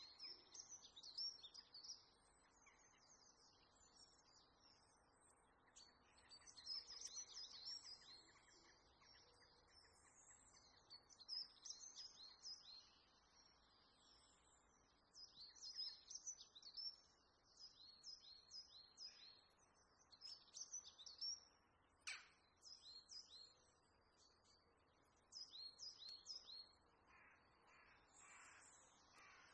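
Faint birds chirping: quick series of short, high chirps coming in bursts every second or two, with a few lower calls near the end.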